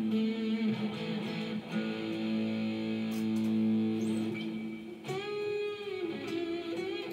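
Electric guitar music played through a Bose S1 Pro portable PA speaker: long sustained notes, with one note bending in pitch about five seconds in.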